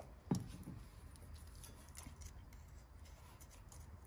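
A steel feeler gauge sliding and clicking between a rocker arm and valve stem while the valve clearance is checked, with faint metallic scraping. One sharper knock about a third of a second in is the loudest sound.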